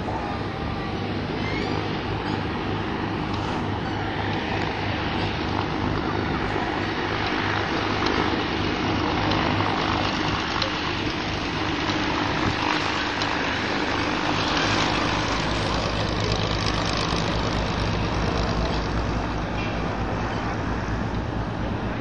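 Piaggio P.180 Avanti's twin pusher turboprops running as it taxis: a steady propeller drone with a low hum underneath, growing heavier in the bass about two-thirds of the way through.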